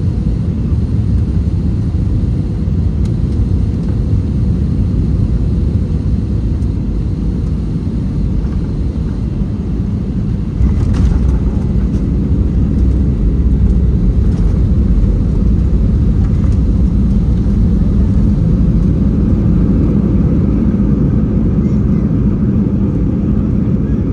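Airbus A321 on landing, heard from inside the cabin: a steady low rumble of engines and airflow, then a sudden jolt about ten seconds in as the wheels touch down, followed by a louder rumble of the wheels rolling on the runway.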